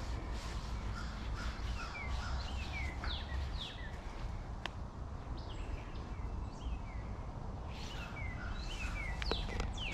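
Birds calling in series of short, quick falling chirps, in bunches a few seconds in and again near the end, over a steady low rumble.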